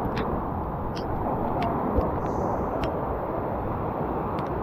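Heavy rain pouring down in a steady, dense rush, with a few scattered sharp ticks.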